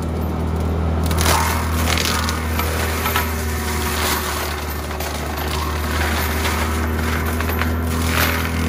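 Compact track loader's diesel engine running steadily under load while brush and small branches crack and splinter against the mulcher head, in several irregular bursts of snapping wood.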